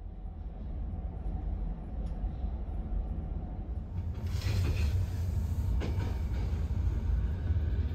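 Sleeper car of a moving passenger train heard from inside: a steady low rumble of the running gear on the rails. A louder hiss joins about four seconds in, with a few faint clicks.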